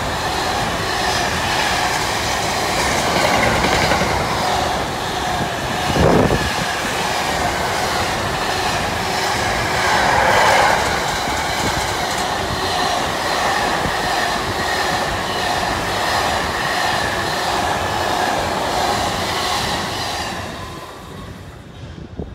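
Container freight train's flat wagons rolling past, a steady loud clatter of wheels on the track, with a single loud knock about six seconds in. The noise dies away near the end as the last wagon passes.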